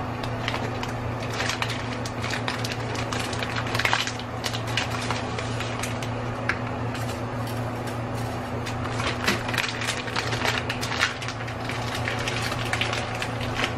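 Steady electrical hum from an electric cooktop heating a pan of water, with scattered crackling and clicking from the pan as dry spaghetti settles into it.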